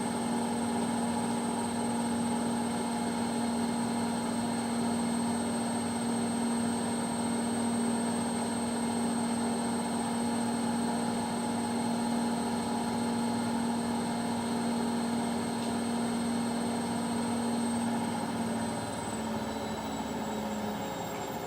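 Indesit washing machine in its final spin at 1200 rpm: the drum and motor give a steady hum with a high whine above it. Near the end the pitch drops slightly as the spin eases off a little.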